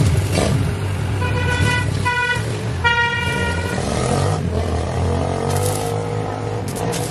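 A vehicle horn tooting three times in quick succession, about a second in, over a steady low engine rumble of passing road traffic.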